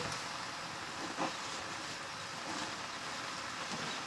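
Steady hissing of nettle leaves steaming in a black iron kadai over a wood fire, with one short, slightly louder sound about a second in.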